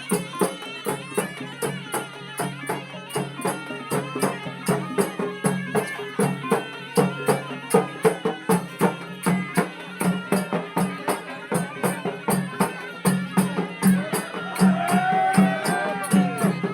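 Traditional temple music: quick, even percussion beats over a steady low drone, with a wavering melody line coming in near the end.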